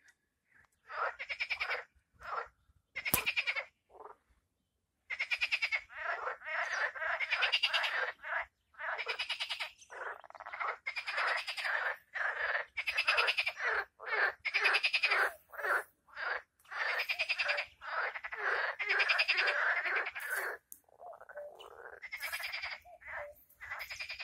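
Frogs calling: rapid rattling croaks, each about half a second to a second long. They start as a few separate calls and then come almost back to back, thinning out near the end. A single sharp click sounds about three seconds in.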